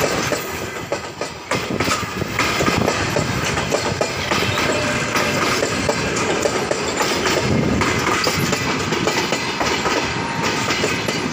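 Russian Railways passenger coaches of a departing train rolling past close by, wheels clacking over the rail joints amid steady running noise.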